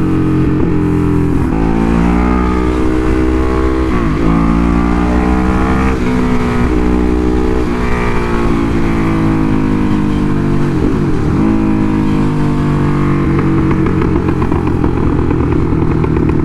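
Ducati Hypermotard SP's V-twin engine being ridden hard: it revs up through the gears several times, the pitch climbing and then dropping sharply at each shift. About two-thirds of the way through the pitch dips low and climbs again, then the engine runs more steadily to the end.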